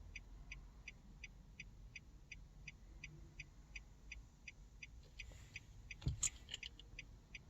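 Car hazard-light flasher ticking steadily, about three ticks a second, with a few louder clicks about six seconds in.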